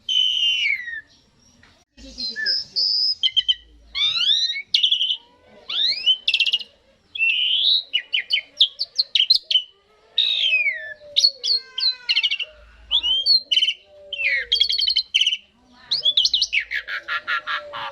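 Jalak suren (Javan pied starling) singing a long, varied song: rising and falling whistles mixed with fast rattling trills and harsh chattering notes, in phrases broken by short pauses.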